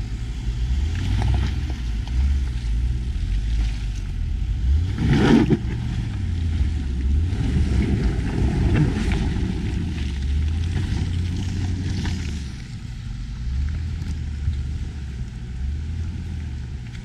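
Off-road 4x4's engine running at low revs, swelling and easing as the driver works it over rough ground, with one sharp thump about five seconds in.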